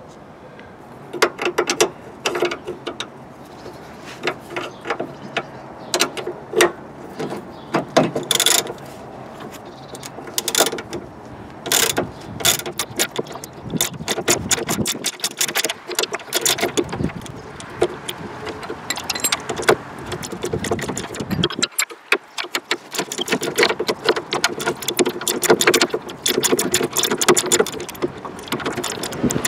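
Ratchet wrench clicking in quick runs as a socket turns the nut on a car's front suspension ball joint, with short pauses between runs.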